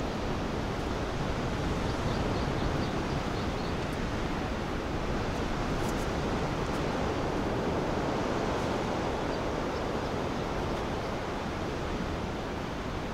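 Steady rush of sea surf breaking on the rocky shore, mixed with wind.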